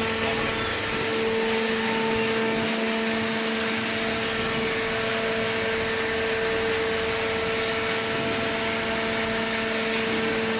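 Industrial cardboard baler running: a steady machine hum with a constant whine that does not change.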